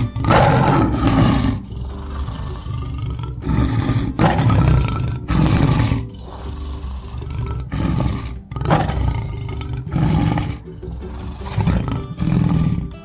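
Tiger roaring repeatedly: about seven deep, rough roars of a second or so each.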